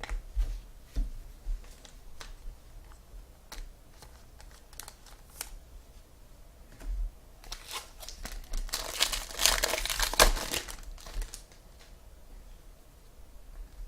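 Trading-card pack wrapper being handled and torn open, with scattered sharp crinkles at first and then a dense stretch of crinkling and tearing about halfway through.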